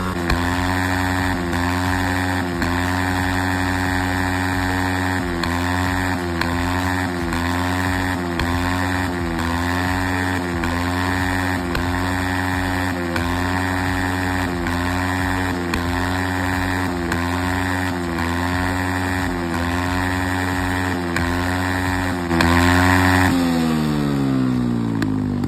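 Scooter engine breathing through a large aftermarket exhaust, revved in quick repeated blips, about one to two a second. Near the end it is held briefly louder, then the revs die away with a steadily falling pitch.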